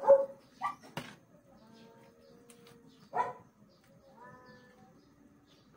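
An animal's short pitched calls: a few sharp yelps near the start and another about three seconds in, with thin, drawn-out whines between them.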